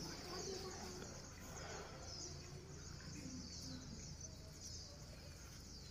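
Faint background: steady high-pitched chirping over a low hum.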